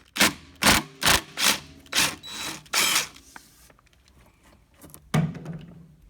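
Power driver with a 7/16-inch socket run in about six short bursts over the first three seconds, then a steadier run of just under a second near the end, loosening the bolt that holds a seized lawn-mower idler pulley.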